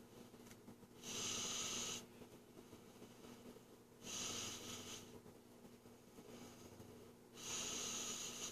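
A person breathing close to the microphone: three noisy exhalations about a second long, roughly three seconds apart, over a faint steady hum.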